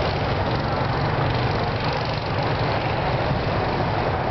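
Go-kart engines running steadily as karts lap the track, a continuous engine drone.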